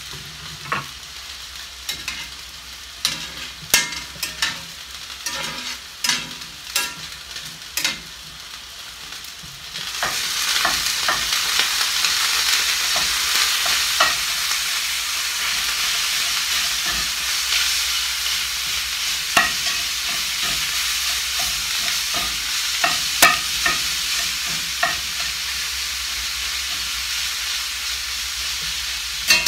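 A metal spatula taps and scrapes in a cast-iron skillet, breaking up ground beef. About a third of the way in, a loud, steady sizzle of frying sets in and carries on under further scrapes and taps.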